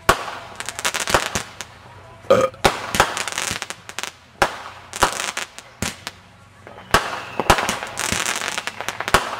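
Aerial fireworks firing in quick succession: sharp bangs of shells launching and bursting at an irregular pace, with a rushing hiss after several of the bangs.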